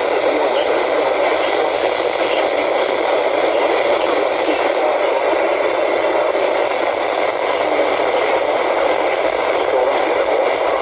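Steady radio static: a constant hiss from a receiver that is picking up no clear signal.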